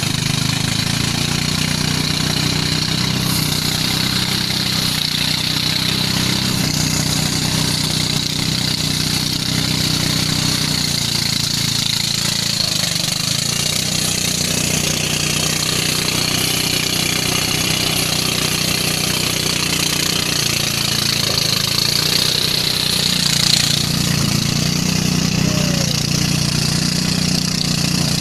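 Engine-driven rice thresher running steadily under load as bundles of rice stalks are fed into its spinning drum: a constant engine drone with a steady high hiss.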